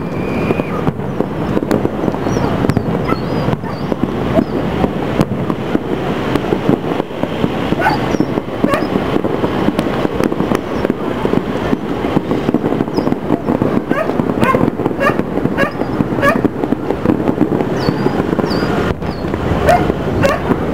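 Distant aerial fireworks going off: a dense, continuous mix of bangs, pops and crackle. Short sharp calls of another source are mixed in from about eight seconds on.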